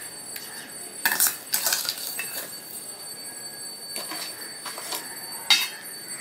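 Metal spoon clinking and scraping against a steel bowl as it breaks up bakorkhani soaked in milk. The strikes are irregular, the loudest a little over a second in and about five and a half seconds in.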